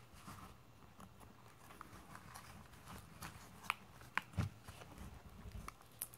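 Faint handling noise of a handmade collage book of fabric and cardboard pages: scattered light clicks, taps and rustles, with a few sharper clicks and a soft thump about four seconds in.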